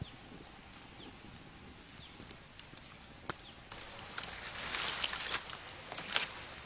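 Open wood fire crackling with scattered sharp pops, the crackle and hiss growing denser and louder about four seconds in as snakes roast on a stick skewer over the flames.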